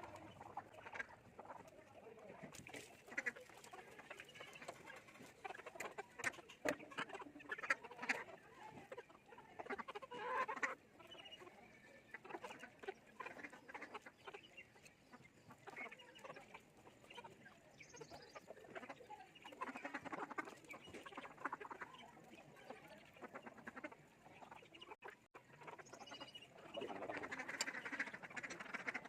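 Ducks quacking in rasping bursts, with scattered short clicks and taps.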